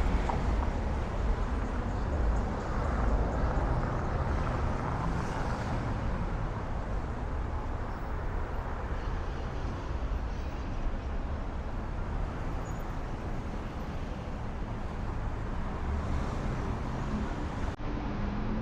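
Street ambience of steady road traffic on a city boulevard, a continuous low rumble of passing cars, with a brief dropout near the end.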